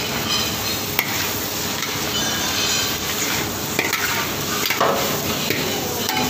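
Pad thai rice noodles stir-fried in a hot wok: a metal spatula and ladle scrape and toss against the pan over a steady sizzle, with a sharp knock of metal on the wok about a second in.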